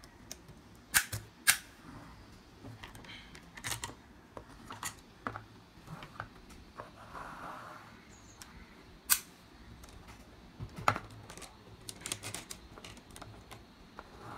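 Hard plastic clicking and knocking as a toy excavator is moved by hand and its bucket pushes and lifts interlocking plastic building blocks on a wooden tabletop. Irregular sharp clicks, the loudest about a second in and a few more later on, with a brief scraping slide about halfway through.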